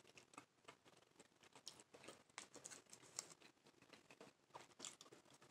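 Faint chewing with a mouthful of food: soft, irregular wet clicks and smacks.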